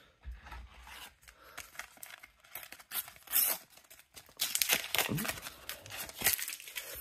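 Panini sticker packet being torn open by hand: a few short rips and rustles of the paper wrapper, busiest in the second half.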